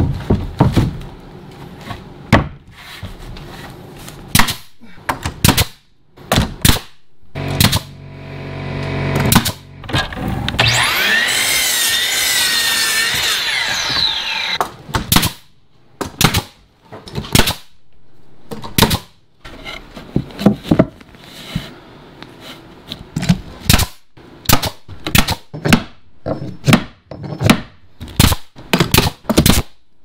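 Angled nail gun firing again and again, driving nails through pine wall boards: dozens of sharp separate shots, some in quick pairs and runs. A louder, steadier sound with a wavering pitch runs for about four seconds midway.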